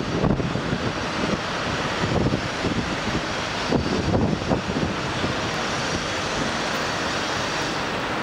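Wind buffeting the microphone over the steady noise of city traffic on the street far below. The gusts die down about five seconds in, leaving the even traffic hum.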